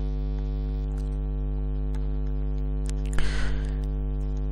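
Steady electrical mains hum in the recording, a low buzz with many even overtones. About three seconds in there is a sharp click followed by a brief hiss.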